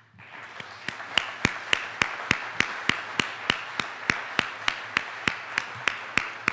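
Audience applauding, with one person's claps close to the microphone standing out sharply and evenly, about three a second.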